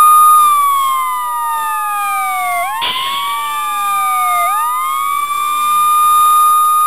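Wailing siren, two siren tones overlapping, each falling slowly in pitch over about two seconds and then sweeping quickly back up, over and over.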